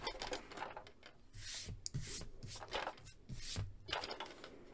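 Hands gripping and turning a large plastic toy spaceship, the Hasbro Mission Fleet Razor Crest: faint, irregular rubbing and swishing of hands on hollow plastic, with a few light clicks.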